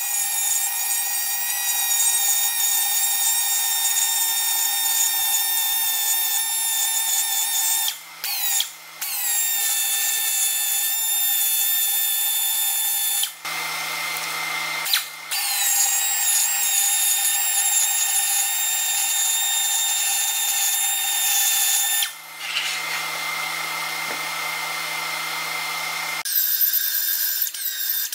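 High-speed rotary tool with a carbide burr grinding down a weld bead on cast aluminum, a high-pitched whine that stops and starts a few times.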